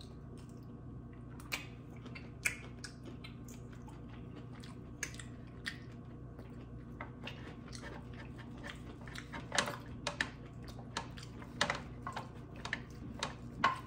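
Close-up eating sounds: a person chewing, with scattered sharp smacks and clicks that come more often in the second half.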